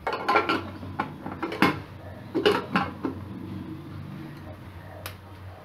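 Aluminium pressure cooker lid being fitted and locked shut on the pot: a run of sharp metal clinks and knocks over the first three seconds, then a last one near the end, over a steady low hum.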